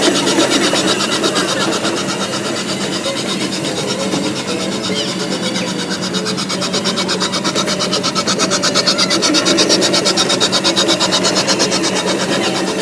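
Fast-forward sound: a rapid, even mechanical chattering that cuts in and cuts out abruptly.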